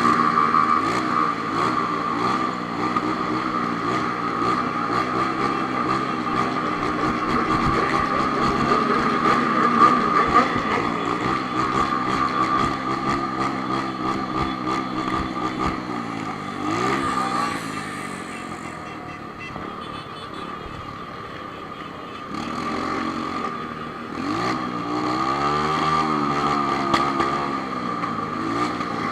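Honda CB1000 inline-four motorcycle engine running, its note falling about halfway through and rising and falling again near the end. A steady high-pitched whine holds its pitch throughout while the engine note changes.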